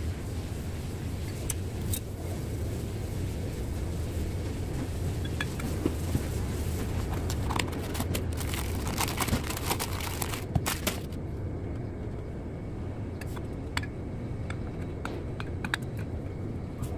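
Light metallic clicks and scrapes from diesel piston parts being handled on a bench, busiest in the middle, over a steady low hum.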